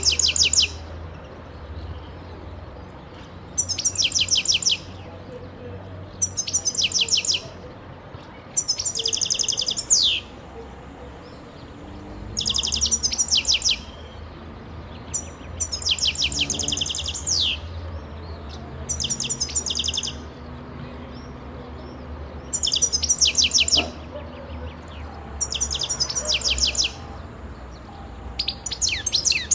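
European goldfinch singing: short phrases of rapid, high twittering notes about a second long, repeated every two to three seconds, several ending in a quick falling note.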